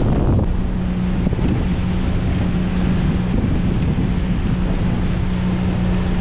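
A fishing boat's engine runs steadily with a constant low hum, under wind buffeting the microphone and sea noise.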